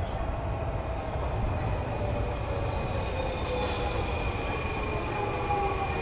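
Underground train running alongside the platform, a low rumble with a whine of several tones falling slowly in pitch as it slows, and a brief high hiss about three and a half seconds in.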